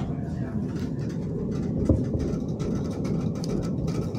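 Cabin of a Hyundai Rotem 142N low-floor tram in motion: a steady low rumble of wheels on rails, with frequent short clicks and rattles and a single thump about two seconds in.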